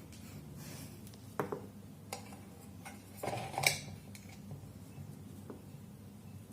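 A few small clicks and clinks from handling wires and small electrical parts, the loudest about three and a half seconds in.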